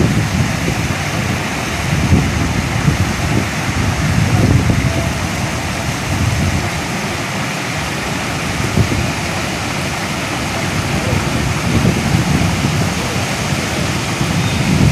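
Strong wind buffeting the microphone: irregular low gusts swelling and falling over a steady, loud hiss.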